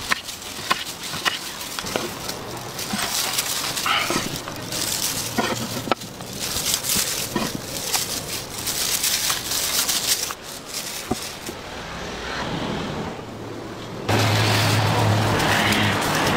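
A large kitchen knife chopping raw crocodile meat on a wooden cutting board, with scattered sharp knocks of the blade on the board. About 14 s in, the sound switches suddenly to a louder, steady noise with a low hum.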